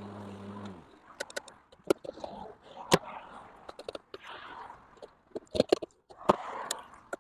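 Ego LM1900E cordless lawn mower's electric motor and blade humming steadily, then cutting out less than a second in. Scattered sharp clicks and knocks follow.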